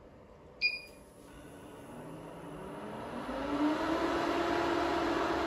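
SuperMicro FatTwin server node powering on: a short click with a high tone about half a second in, then the cooling fans spin up in a rising whine that levels off into a steady whir about three and a half seconds in.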